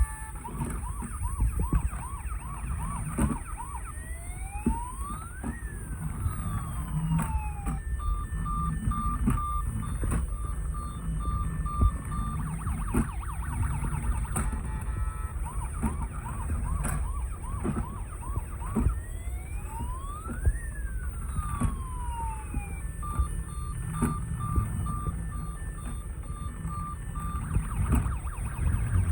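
Toy emergency vehicle's electronic siren sounding through a repeating cycle: a fast yelping warble, then long rising and falling wail sweeps, then rapid on-off beeping. The cycle plays twice, over a low rumble with scattered clicks.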